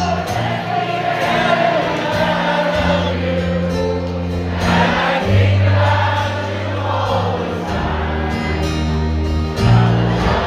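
Live folk-rock band playing, with acoustic guitars and held low bass notes under many voices singing together.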